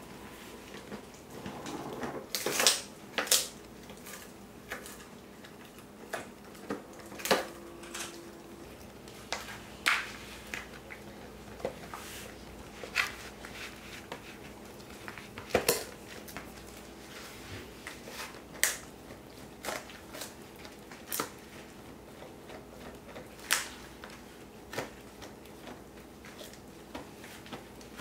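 Cane Corso gnawing a giant knotted chew bone: irregular sharp crunches and clicks of teeth on the hard chew, roughly one every second or two.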